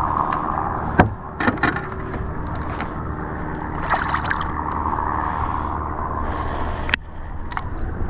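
A steady low motor drone, with a few sharp knocks about a second in and again near the end.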